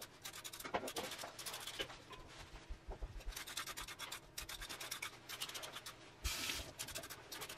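Vegetable peeler scraping down a raw carrot in quick, repeated strokes.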